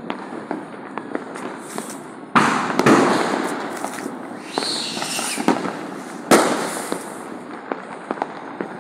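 Diwali fireworks and firecrackers going off across the neighbourhood: scattered sharp pops and cracks throughout, with two loud sudden blasts, each trailing off over a second or two, and a short falling whistle between them.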